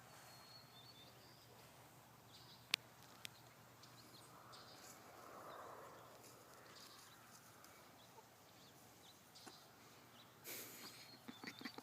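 Near silence: faint outdoor background with a faint high chirp at the start and two sharp clicks about three seconds in. Near the end comes a louder burst of rustling noise followed by quick knocks.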